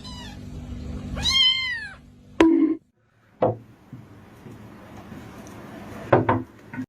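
A cat meowing twice, a short meow at the start and a longer, louder one about a second in, followed by a few sharp knocks.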